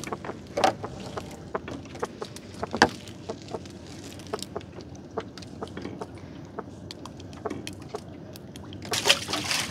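Wet nylon gill net being hauled over a small boat's side and picked by hand: rustling, dripping water and scattered small clicks and knocks. There is a louder knock about three seconds in and a short burst of hiss near the end.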